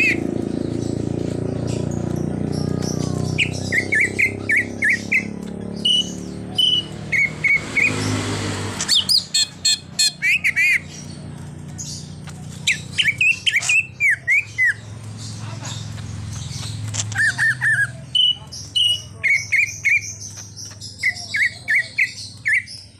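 Cucak ijo (green leafbird) singing runs of short, sharp chirped notes in quick series, with pauses between phrases. A low background rumble runs under the first part and stops abruptly about nine seconds in.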